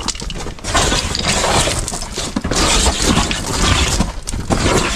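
Gritty crunching and scraping of loose sand and gravel underfoot and against the body while moving through a narrow tunnel. The noise comes in long stretches, with a couple of brief pauses.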